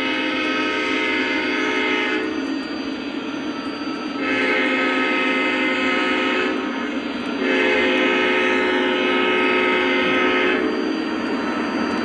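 Electronic sound system of Lionel Legacy O-gauge diesel locomotives, played through their onboard speakers: a steady diesel engine rumble under a multi-note horn. One horn blast ends about two seconds in, then two more long blasts follow, the second the longest.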